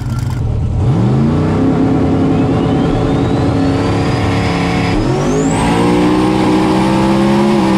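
Turbocharged LS V8 of a drag-radial Foxbody Mustang at full throttle, heard from inside the car. The engine note climbs sharply about a second in and holds, dips and picks up again at a gear change near the middle, and a high whine rises steadily underneath.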